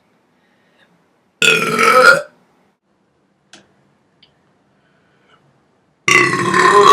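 Two loud, deliberate human burps, each just under a second long: one about a second and a half in, the other near the end.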